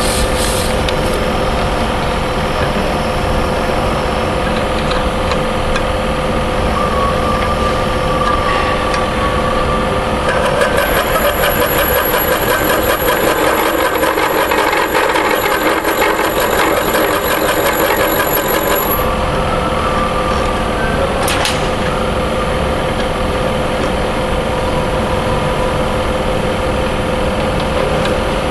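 Benchtop tool-sharpening grinder running with a steady hum. For about eight seconds in the middle it turns louder and fuller, with a thin high whine on top, then settles back to the steady hum.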